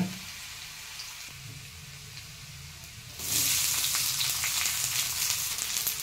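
Minced garlic frying in hot oil in a kadhai with a faint, steady sizzle. About three seconds in, sliced onions are dropped into the hot oil and the sizzle suddenly becomes much louder and stays loud.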